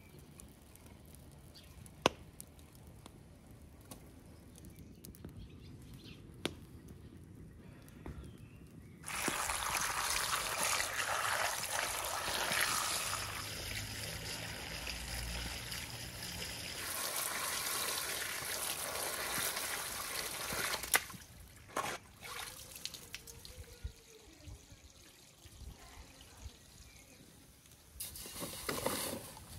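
Water from a garden hose splashing into a metal bowl of potatoes as they are rinsed. The flow starts about a third of the way in and stops about two-thirds of the way through.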